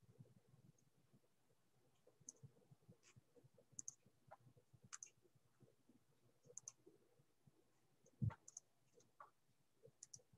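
Faint computer mouse clicks, scattered and often in quick pairs, over near silence, with one louder soft thump about eight seconds in.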